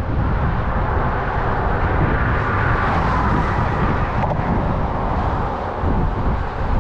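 Road traffic crossing a highway bridge, one vehicle passing louder about two to three seconds in, over a steady low rumble.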